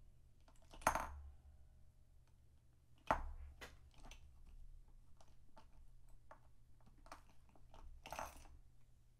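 Craft supplies being handled on a desk: three sharper knocks or clicks, about a second in, about three seconds in and near the end, with lighter taps and ticks between them.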